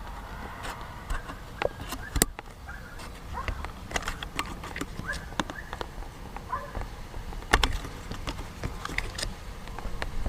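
Scattered small clicks and taps of plastic airbag wiring connectors being handled and pried apart, the sharpest about two seconds in and again at about seven and a half seconds. Faint short chirps sound in the background.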